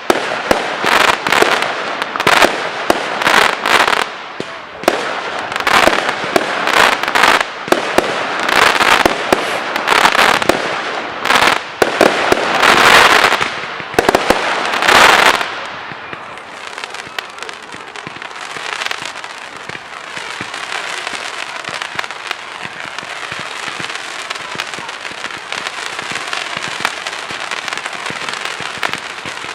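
Professional fireworks display: rapid loud bangs and bursting shells for about fifteen seconds, then a steadier, quieter crackling fizz of many small pops.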